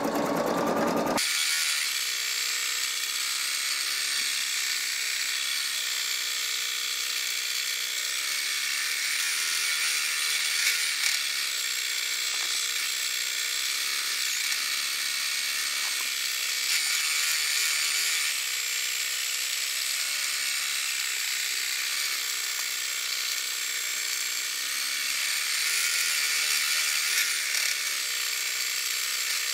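Singer EM9305 embroidery machine stitching out a design. About a second in, the playback is sped up eightfold, and the stitching turns into a steady high-pitched buzz.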